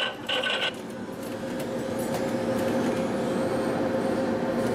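A vending machine's electronic chime melody ends just under a second in, and a steady mechanical hum with a constant low tone follows.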